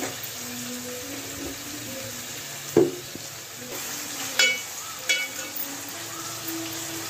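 Sliced onions sizzling in hot oil in an aluminium pot as a spoon stirs them. A sharp knock comes a little under three seconds in, and two ringing clinks of the spoon against the pot follow at about four and a half and five seconds.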